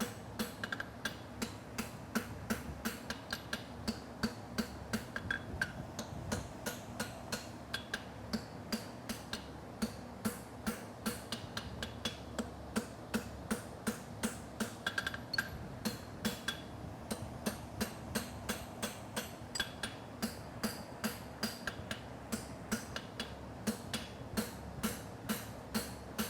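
Hand hammer striking a hot steel concave horseshoe on an anvil in a steady run of blows, about two to three a second, each with a short metallic ring, as the heel is forged over in line with travel.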